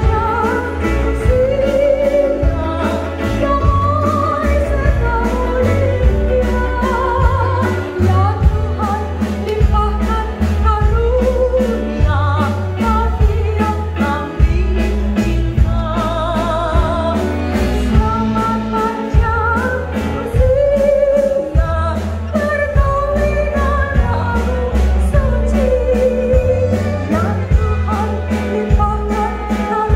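A woman singing a melody with vibrato over a band accompaniment with a steady beat and a heavy bass line.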